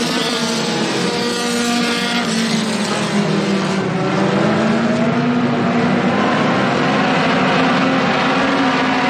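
A pack of four-cylinder dirt-track stock cars racing past, several engines running at once and rising and falling in pitch as they go through the turns.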